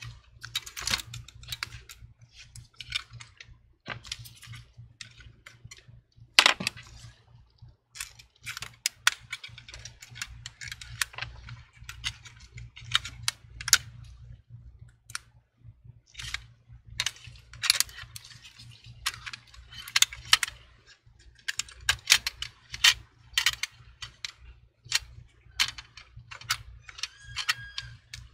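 Irregular light clicks and taps of small parts being handled: a MacBook Pro logic board and fan assembly being shifted and pressed into its aluminium case, with one sharper knock about six seconds in.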